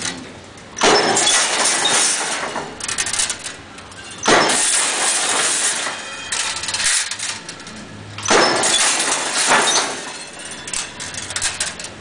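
Semi-automatic crimped wire mesh weaving machine running in cycles: a loud mechanical clatter starts about every four seconds, three times, each lasting a second or two before dying down, with quieter rattling between.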